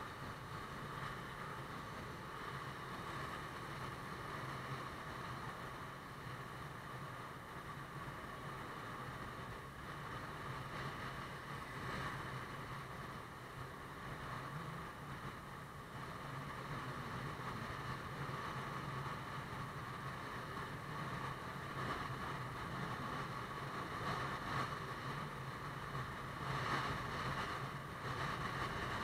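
Motorbike riding at a steady cruise, heard from a camera on the bike: a low engine hum under wind and road noise on the microphone, growing a little louder with a few short swells near the end.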